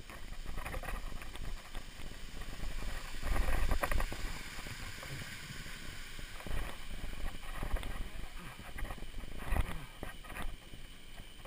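Knocks, clicks and low rumbles of a rider-carried camera jolting along a wet dirt trail while riding a unicycle, with three heavier rumbling bumps.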